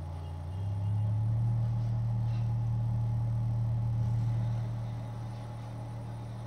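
Sweton 6-inch subwoofer, driven by a TPA3116D2 amplifier, playing a steady low bass test tone. It swells about half a second in and fades a little near the end.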